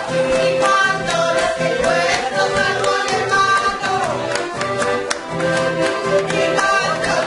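Background music with held notes over a repeating bass line.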